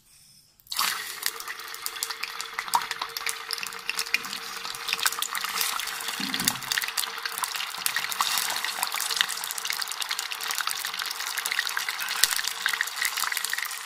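Paneer cubes sizzling in hot oil in a pan, a steady hiss full of small crackles and pops. The sizzle starts suddenly under a second in.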